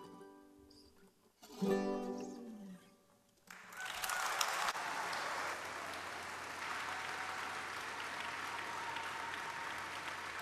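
A plucked-string trio of oud, guitar and a second lute-type instrument strikes a final chord that rings out and fades. About three and a half seconds in, audience applause begins and carries on steadily.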